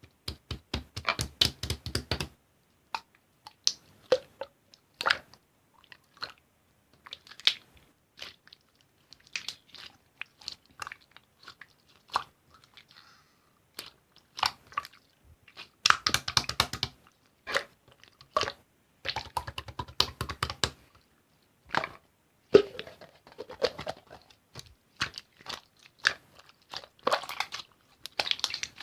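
Slime being squeezed and pressed by hand, making runs of rapid sticky clicks and pops with scattered single clicks between.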